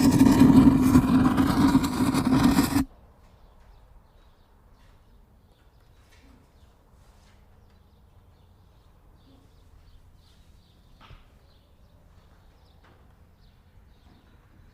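A loud engine running steadily, cut off abruptly about three seconds in. Faint outdoor ambience with scattered small ticks and chirps follows.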